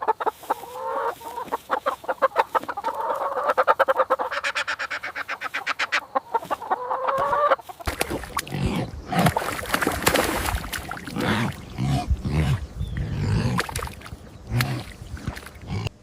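Fowl calling in a fast run of short, pulsing notes that rise slightly in pitch, for about eight seconds. It cuts off abruptly into irregular low thuds and knocks.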